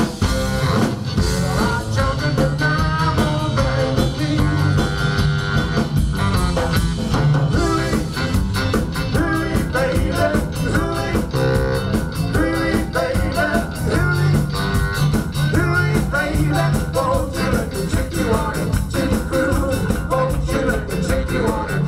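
Live rock and roll band playing with singing: drum kit keeping a steady beat, electric guitar and bass saxophone.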